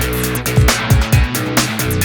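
Electronic background music with a steady, driving drum beat and heavy bass.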